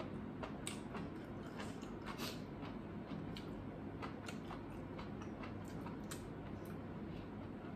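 Eating sounds: chewing, with scattered small irregular clicks of a fork against the plate.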